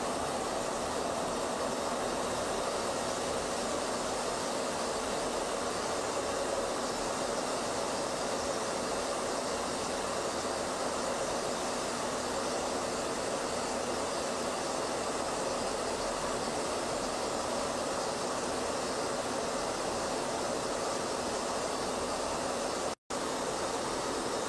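Steady rushing noise of jet aircraft in flight, without change, cutting out for an instant near the end.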